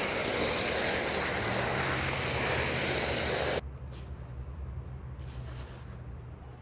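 A steady, even spraying hiss that cuts off abruptly about three and a half seconds in, leaving only a faint low background.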